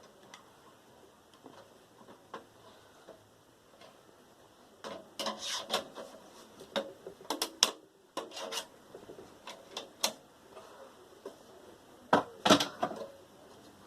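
Irregular clicks, knocks and scrapes of plastic and metal parts of a Sony VAIO desktop tower being handled and pulled apart during disassembly, loudest in clusters about halfway through and near the end.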